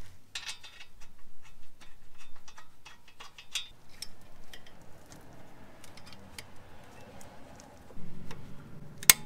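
Metal brake parts clicking and clinking as the pads and caliper are handled and fitted over a car's front brake rotor, with one sharper click near the end.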